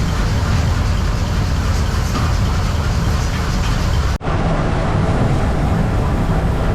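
Loud, steady mechanical rumble, briefly cut off about four seconds in and then resuming.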